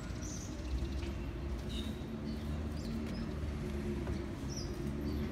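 Outdoor background of a steady low hum, with a few brief, high bird chirps scattered through it.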